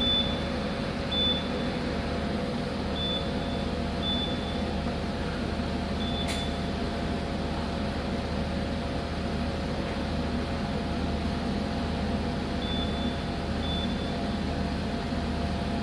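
5-axis CNC machining center running a probe calibration cycle: a steady machine hum with short high-pitched tones that come and go. One sharp click sounds about six seconds in.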